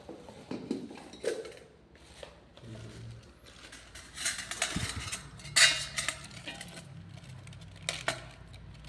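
Clinks, knocks and scraping as blender parts are handled and fitted together, busiest about four to six seconds in with one sharper knock.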